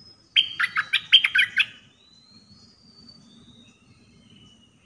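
Caged decoy songbird of the kind called dok taeng in Thai (merbah lekir) singing one quick, loud phrase of about eight rapid notes. Faint whistles of other birds follow.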